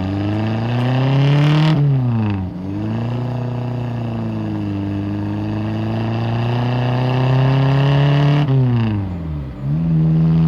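Motor vehicle engine revving. Its note climbs, falls steeply and picks up again twice: about two seconds in and near the end.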